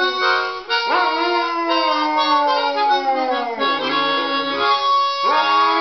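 English Springer Spaniel howling along with a chromatic harmonica. The dog's howls rise sharply and then slide slowly downward, one just before a second in and another starting about five seconds in, over the harmonica's held notes.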